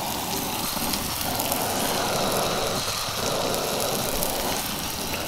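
Single-burner propane camp stove burning with a steady rushing hiss under tortillas warming over the flame.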